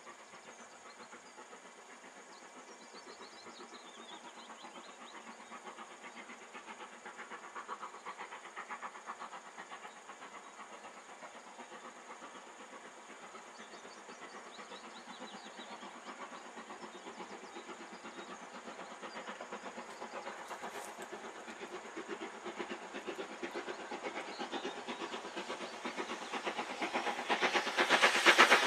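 LMS Black 5 two-cylinder steam locomotive working a passenger train, its exhaust beats growing steadily louder as it approaches, loudest near the end as it draws level.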